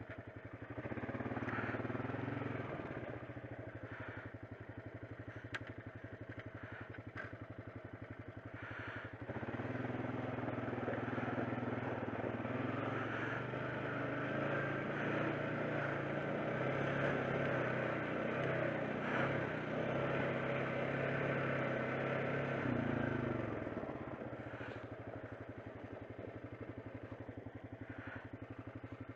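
ATV engine running as the machine rides along a rough trail. It pulls harder briefly near the start and again for a long stretch from about a third of the way in, then settles back to a lower, steadier running near the end. A few sharp clicks in the first third.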